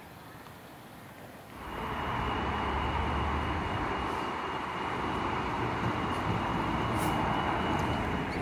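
Faint ambience for about a second and a half, then a Transperth A-series electric train at a station platform comes in suddenly: a steady running noise with a thin high whine held over it.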